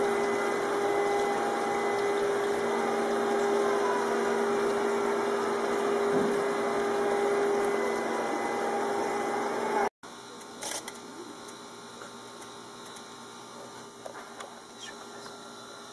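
Steady hum of a pond pump over the rushing hiss of running water, cutting off abruptly about ten seconds in. After that, only a much quieter indoor room hum with a few light clicks and taps.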